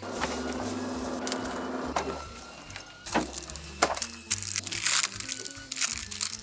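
Background music, and from about three seconds in, sharp crackling and rustling as the plastic packet of a new multi-hook fishing rig is handled and opened.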